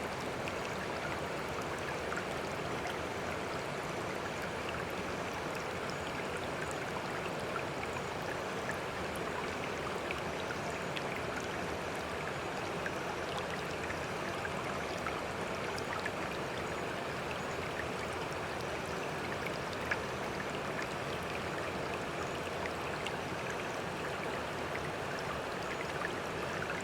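Steady running water of a stream or brook, flowing and trickling evenly, with small splashes and drips scattered through.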